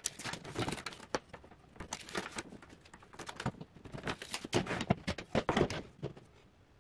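Irregular light clicks, taps and scrapes from handling a tape measure, a long straightedge and a pencil on a particle-board sheet while measuring and marking a line; the clatter is busiest a little past the middle.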